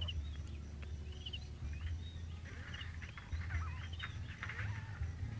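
Several newborn kittens mewing over and across one another in thin, high-pitched cries, the cries of young kittens calling for their absent mother.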